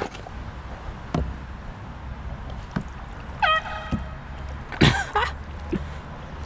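Low rumble of wind and water around a fishing kayak, with a few light knocks. About halfway through come two short pitched calls, the first a clear tone with a sharp upward start.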